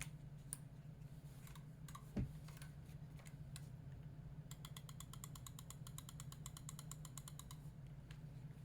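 Akko 5075S mechanical keyboard with factory-lubed Gateron Pro Milky Yellow linear switches and PBT keycaps being typed on. Scattered keystrokes come first, with a low thump about two seconds in, then a fast, even run of key clicks, about ten a second, for about three seconds. A steady low hum sits underneath.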